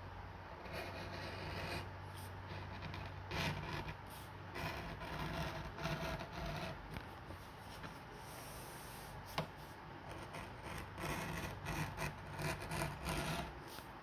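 Keen #3 edge beveler shaving the edge of a vegetable-tanned leather belt in repeated scraping strokes, with one sharp click about nine seconds in.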